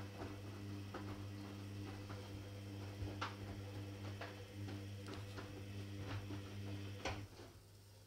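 Hoover Dynamic front-loading washing machine tumbling a load on a 30 °C fast-tumble main wash: a steady motor hum with irregular clicks and sloshes from the turning drum. Near the end the tumbling stops and the sound drops to a low hum.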